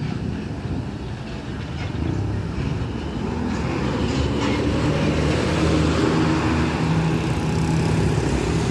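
Bus diesel engine running as it passes close by in heavy road traffic, growing louder over the second half.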